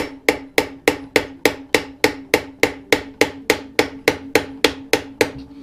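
Hammer tapping rapidly and evenly on a screwdriver seated in a corroded Phillips screw on a Harley-Davidson Evolution engine, about three or four strikes a second with a steady metallic ring under them. The blows shock the rusted screw loose.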